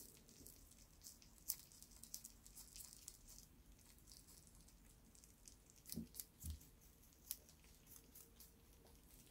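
Lop-eared rabbit chewing a fresh green leaf: faint, quick, crisp crunching ticks as it bites and chews, with two soft low thumps about six seconds in.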